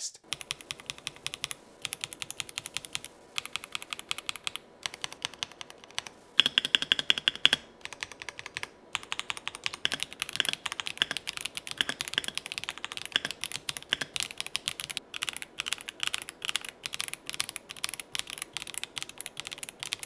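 Royal Kludge M75 gasket-mounted mechanical keyboard with factory-lubed speed silver linear switches, foam and silicone dampening, and greased plate-mounted stabilizers, being typed on quickly with a few brief pauses.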